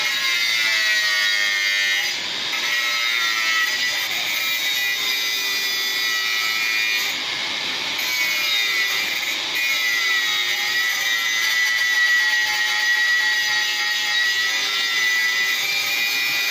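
Handheld electric angle grinder with its disc against a light steel frame: a steady high whine over a grinding rasp, its pitch sagging now and then as the disc bites into the metal.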